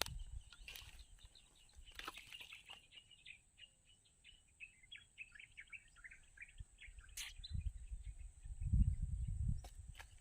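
Birds chirping in a quick run of short, high calls, with a few sharp clicks and a low rumble about three quarters of the way in.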